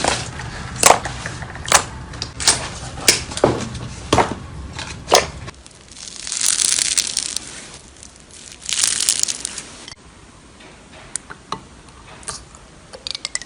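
Slime being squeezed and pressed by hand: a run of sharp sticky pops and crackles, then two longer hiss-like squishes about halfway through, then a few faint clicks.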